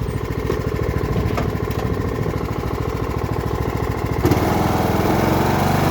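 Riding lawn mower engine running with a rapid, even pulse; about four seconds in it grows a little louder and steadier.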